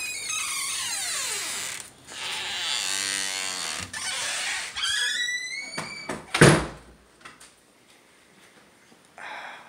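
A door squeaking on its hinges as it swings, in long falling and rising squeals, then shutting with one loud thud about six and a half seconds in.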